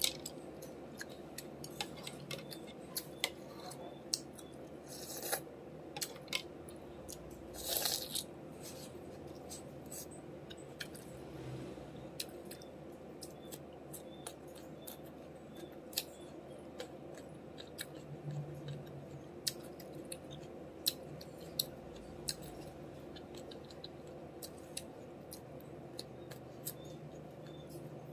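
Close eating sounds: crisp bites and crunching chews of raw green mango slices, with many sharp crackles scattered through.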